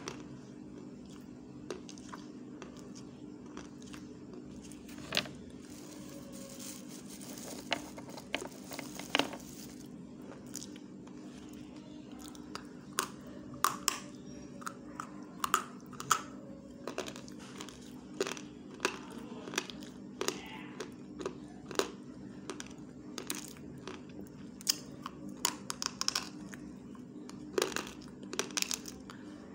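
Mouth sounds right at the microphone: irregular sharp clicks and smacks of lips and teeth on a flat stick, as in eating food off it, over a steady low hum.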